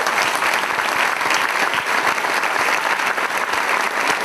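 Audience applauding: a dense, steady clatter of many hands clapping.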